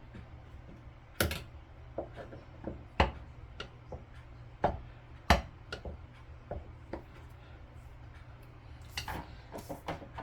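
Flat-head screwdriver clicking and knocking against metal faucet parts, a few sharp strikes a second or two apart with a quick cluster near the end, as it fails to turn the part.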